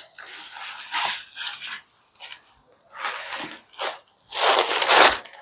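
Saree fabric rustling and swishing as it is unfolded and handled, in several bursts, the loudest near the end.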